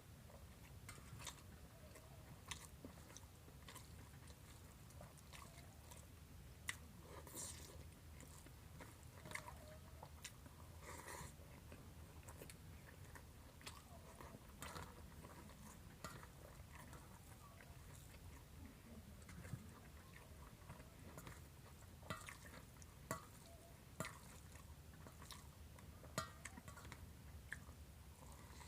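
Faint chewing and mouth sounds of a person eating rice with cauliflower and fried egg: irregular soft smacks and small clicks, a few louder ones, over a faint steady low hum.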